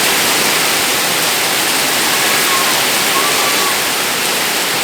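Heavy rain pouring down: a steady, loud rush of water.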